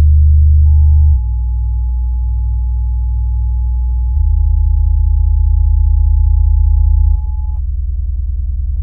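Deep, steady bass drone from a movie's opening soundtrack, reproduced by home-theater subwoofers. It shifts in strength a few times, dropping about a second in, swelling again about four seconds in and easing near the end. A thin, steady high tone sits over it from about a second in until shortly before the end.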